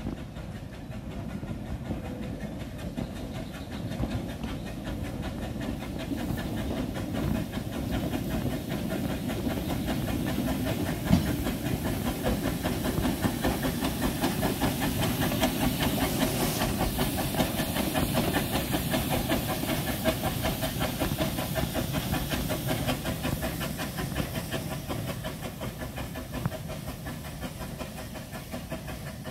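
Narrow-gauge steam tank locomotive (the charter's 1916 Decauville No. 1652) working a train of small wooden coaches past: a fast steady beat of exhaust and wheel clatter over a hiss of steam, growing louder as it comes close, loudest about two-thirds through, then fading as it pulls away. A single sharp click sounds a little over a third of the way in.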